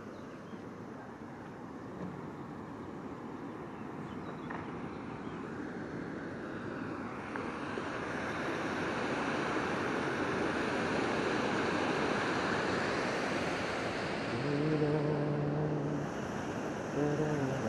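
Water rushing over a river weir, a steady roar that grows louder through the first half and stays loud. Near the end a low steady hum comes in twice, each time for about a second and a half.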